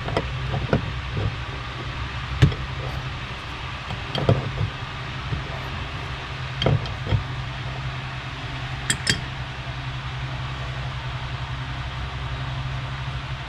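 Scattered light clicks and knocks from hands working at a sink's shutoff valve and water supply fittings, including a quick double click about nine seconds in, over a steady low hum.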